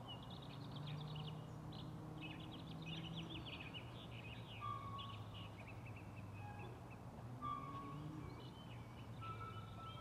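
Small birds chirping and twittering in quick, high calls, with two short clear whistled notes standing out, over a steady low hum.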